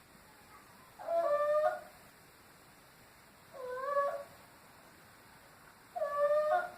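A sleeper snoring with a high, squealing note on each breath, like a hen having its throat cut. Three snores come about two and a half seconds apart.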